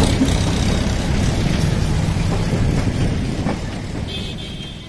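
Short passenger train's coaches rolling along the rails and moving away, a low rumble that fades steadily as the last coach passes.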